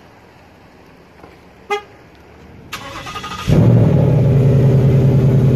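A short beep, then the 2019 Mustang GT's 5.0-litre Coyote V8 is started: the starter turns it over for under a second and the engine fires loudly about three and a half seconds in, settling into a steady idle.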